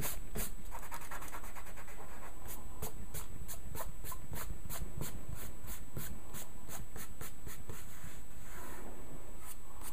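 Fingers rubbing dried masking fluid off the paper, quick repeated scratchy strokes as the rubbery film is worn away.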